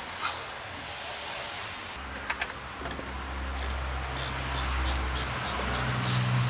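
A ratchet wrench worked in quick strokes, about three a second, starting a little past halfway, as bolts on the column-shift linkage are tightened. A low steady hum builds up underneath from about two seconds in.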